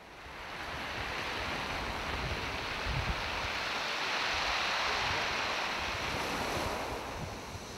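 Sea waves breaking and washing over rocks and shingle: a steady surf wash that fades in over the first second, with wind buffeting the microphone.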